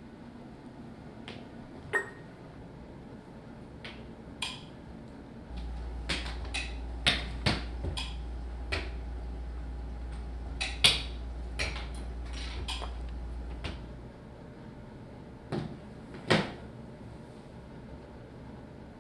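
Chess pieces knocked down and set on a board, a series of sharp clacks at irregular intervals, thickest in the middle. A low steady hum runs underneath from about a third of the way in until about three-quarters of the way through.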